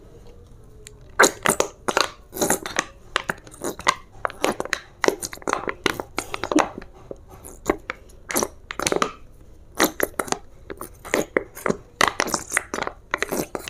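A nearly empty plastic chili sauce squeeze bottle being squeezed hard over and over, crackling and sputtering in short irregular spurts as air and the last of the sauce squirt out.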